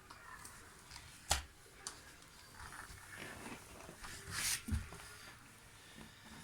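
Small handling noises of a pet playing with a toy: a sharp click about a second in, then a short rustle and a dull thump past the middle.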